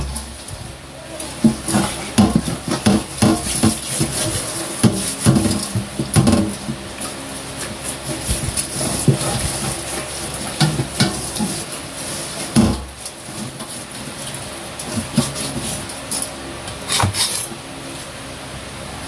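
A whole raw chicken being rubbed and turned by hand in a stainless steel bowl, with irregular knocks and rattles of the metal bowl, one louder knock about two-thirds of the way through, over a steady low hum.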